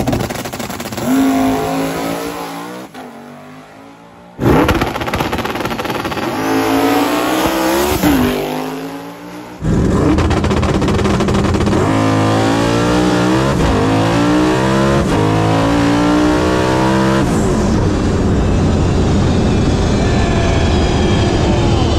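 Twin-turbo LSX V8 drag car under full throttle down the strip. The engine pitch climbs and falls back at each stick-shift upshift, four or five times from inside the car. About 17 seconds in, the throttle is lifted and the engine settles into a steadier, lower drone as the car rolls out.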